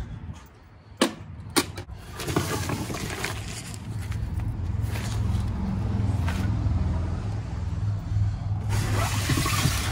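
Items being shifted about on the plywood floor of a truck-bed camper: two sharp knocks about a second in, then a fabric bag rustling. Underneath, from about two seconds in, a motor vehicle's engine runs with a steady low hum that grows louder.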